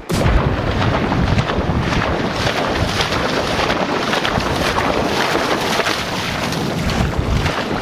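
Wind buffeting the microphone, with water splashing as a dog runs through shallow water.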